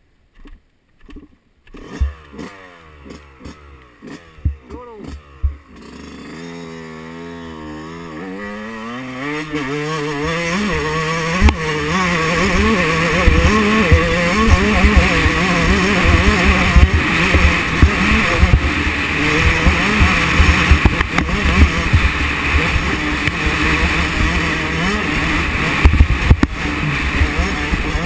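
2005 Yamaha YZ125 125cc single-cylinder two-stroke dirt bike engine: a few throttle blips, then pulling away, its note rising and getting louder for several seconds before running hard with wind noise and frequent short knocks.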